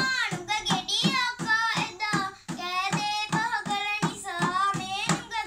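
A young girl singing Sinhala viridu verses in a gliding, high voice, accompanying herself with steady beats on a small hand-held rabana frame drum.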